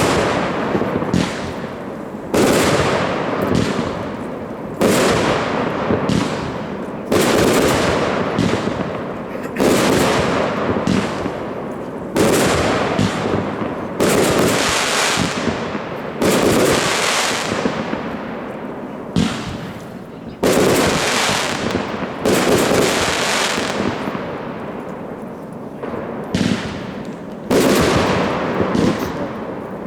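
Consumer fireworks cake (Gold Obsession & Flower Fusion) firing: loud shots about every two seconds, each followed by a hiss that fades away.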